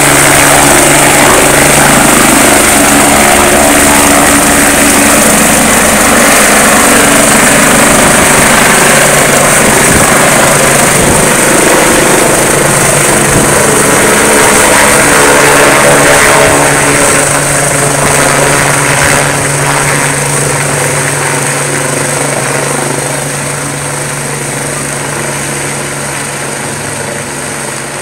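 Air ambulance helicopter taking off and climbing away: loud, steady turbine and rotor noise with a constant low hum, fading gradually over the last ten seconds as it flies off.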